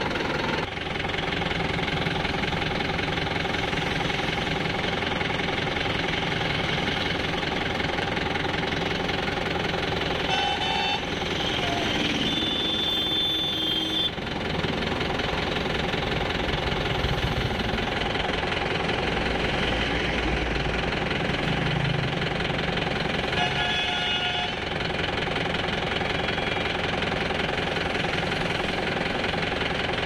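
A tractor's diesel engine running steadily, with a brief higher-pitched tone heard twice, around a third of the way in and again past the middle.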